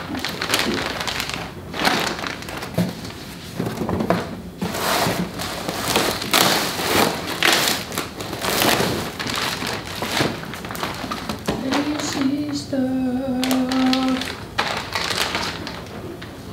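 Clear plastic packaging crinkling and rustling as wrapped parts are pulled out of a cardboard box, with the occasional thud. About twelve seconds in, a brief voice-like hum lasts a couple of seconds.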